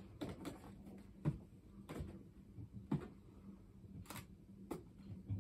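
Cardboard boxes handled on a table: a small product box is turned over and set down. About half a dozen light knocks and scrapes are scattered through it, the sharpest about a second in and again near three seconds.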